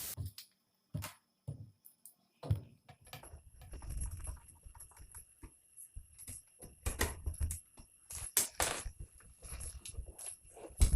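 Irregular clicks, taps and knocks of a hot air gun holder being handled and fitted onto the side of an SMD rework station's casing, with a few dull thumps.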